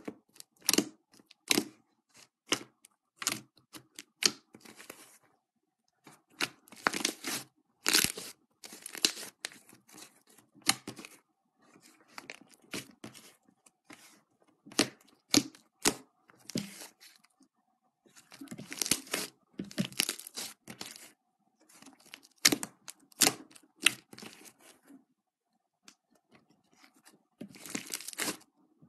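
Fluffy slime being stretched, pulled and squeezed by hand, giving bursts of crackling, tearing sounds with short pauses between them.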